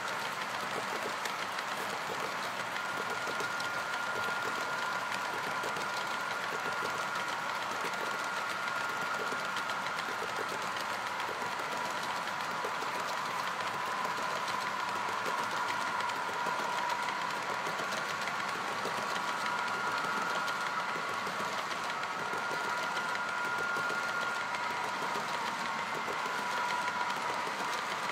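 Model coal train's hopper cars rolling steadily over track, a continuous rattling run of wheels with a thin steady whine over it.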